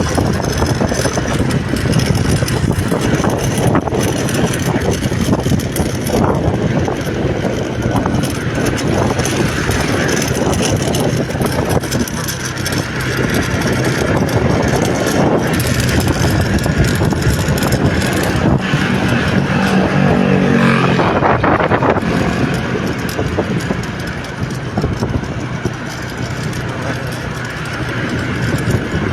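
Steady vehicle engine and traffic noise with a constant low hum. About two-thirds of the way through, a louder pitched engine sound swells and fades.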